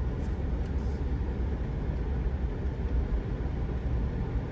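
Steady low rumble of a vehicle driving slowly, engine and road noise.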